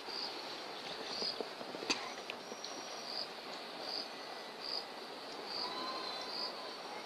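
Insects chirping in a high, steady band that swells in pulses a little faster than once a second, over an even background hiss. One sharp click about two seconds in.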